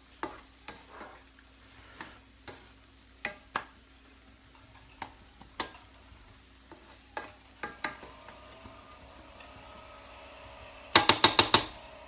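A spoon stirring in a frying pan, with scattered knocks against the pan about once or twice a second. Near the end comes a quick run of about six sharp clicks, the loudest sound.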